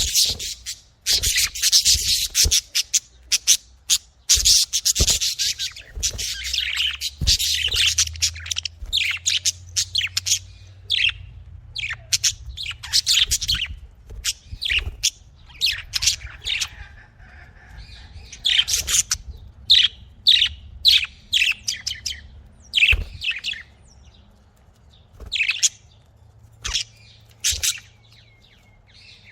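Pet budgerigars chirping and warbling, a dense run of rapid high-pitched chatter that thins out after about ten seconds into short separate chirps.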